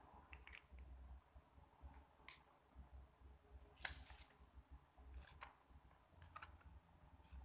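Near silence with a low hum and a few faint, scattered clicks and rustles; the loudest click comes about four seconds in.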